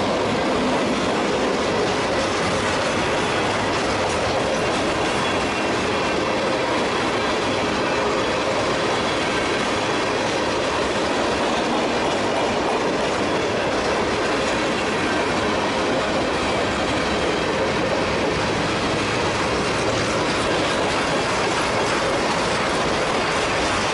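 Freight cars of a mixed manifest train rolling past at close range: steel wheels running on the rails in a loud, steady, unbroken noise.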